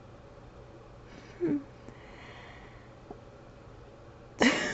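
A woman's brief hum about a second and a half in, a soft breath through the nose, then a sudden burst of breathy laughter starting near the end.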